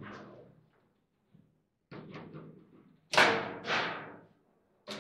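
Foosball table in play: sharp knocks and bangs as the ball is struck by the rod figures and hits the table, and the rods knock in their bearings. A run of strikes comes about two seconds in, and the loudest pair of bangs follows a second later.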